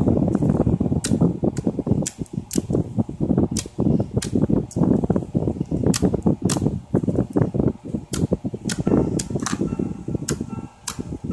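Glossy slime being squeezed and poked by hand: wet squelching with frequent sharp pops and clicks at an irregular pace.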